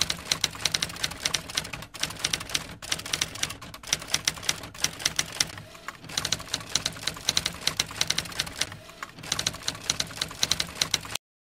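Typewriter keystroke sound effect: rapid clicking keys with a few brief pauses, cutting off abruptly near the end.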